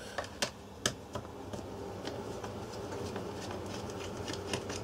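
Small screwdriver turning out the screws of a plastic smart-plug case: a few light clicks in the first second and a half, then quieter scattered ticks.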